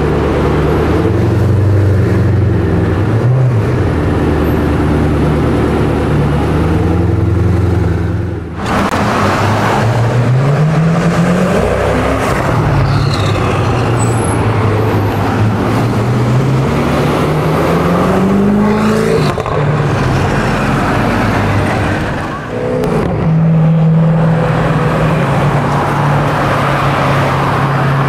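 Koenigsegg Agera's twin-turbo V8 running at low revs with a steady note for several seconds, then pulling away with engine pitch rising in two long climbs. The steady note returns near the end, with road traffic around it.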